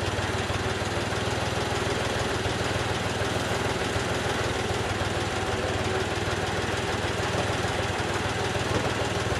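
Case 580K backhoe's four-cylinder diesel engine idling steadily.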